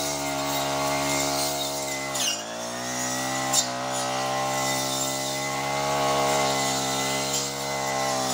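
Backpack brush cutter's small petrol engine running at high revs while its blade cuts through weeds. About two seconds in the revs dip briefly and climb back, and a short sharp knock follows about a second later.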